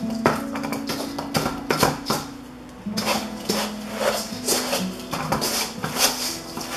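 A wooden spoon stirring a sticky Rice Krispies cereal mixture in a stainless steel mixing bowl, with repeated scrapes and knocks against the bowl, over background music with held notes.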